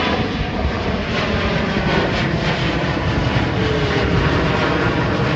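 Alaska Airlines jet airliner's engines running loud and close, a dense steady rush with a faint whine dropping in pitch.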